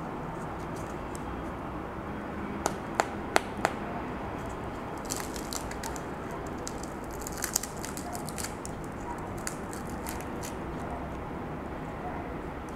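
Crispy skin of a fried chicken breast crackling as it is torn apart by hand: four sharp cracks about three seconds in, then a run of lighter crackles over the next few seconds, over steady background noise.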